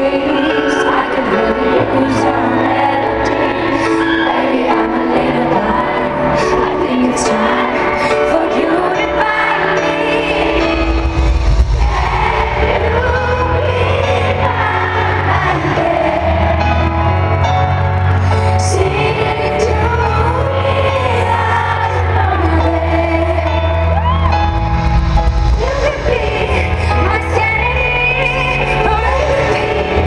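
A woman singing a pop ballad live with her band's accompaniment; the bass comes in about ten seconds in and fills out the sound from there on.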